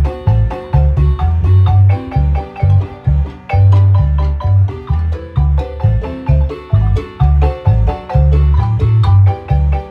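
Marimba music: rapid struck wooden-bar notes in a lively melody over a deep, regular bass pulse.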